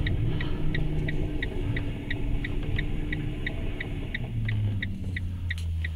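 A car's flasher relay ticking evenly, about three clicks a second, inside the cabin of a towed car. Under it runs a low vehicle rumble that grows stronger about four seconds in.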